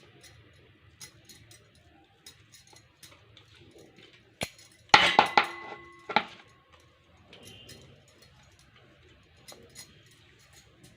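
Boiled eggs being grated on a metal grater, with faint light ticks and scrapes. A sharp metal clink about five seconds in rings briefly, and another follows about a second later, like the grater knocking against a bowl.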